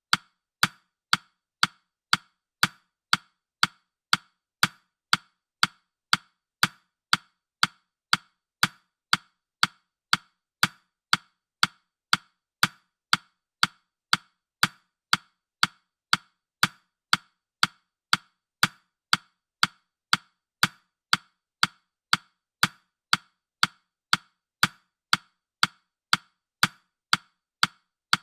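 Countdown timer ticking sound effect: sharp, evenly spaced ticks at about two a second, steady throughout.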